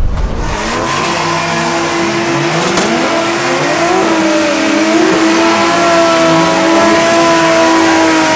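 Drift car engine revving hard, its pitch sweeping up and down while a steadier high-rpm note holds underneath.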